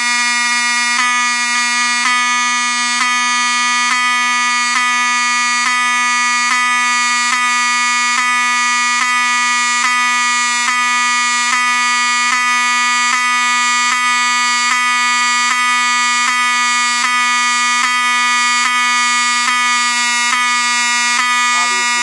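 Wheelock 7001T-24 fire alarm horn/strobe (Wheelock 34T horn) sounding a continuous loud horn tone. About once a second the tone briefly skips as the strobe flashes.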